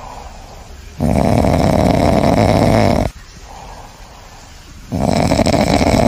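Loud, rasping snoring: two long snores about four seconds apart, each lasting about two seconds.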